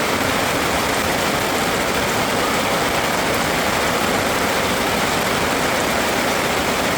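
A steady rushing noise with no distinct tones, beginning and ending abruptly at cuts.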